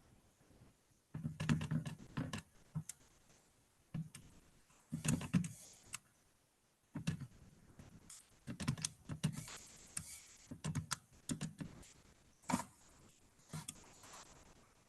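Irregular runs of light clicks and taps, several short clusters with pauses between them, like keys or a stylus being tapped while someone works.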